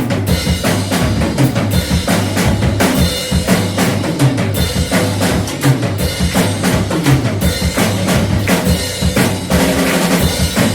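Live band playing an instrumental passage, led by a drum kit with frequent bass drum and snare hits over a low, moving bass line.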